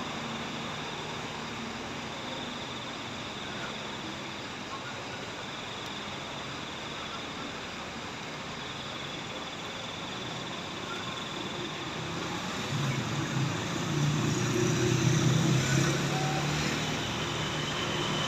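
Truck engine running at a steady pace over outdoor background noise, growing louder for a few seconds about two-thirds through.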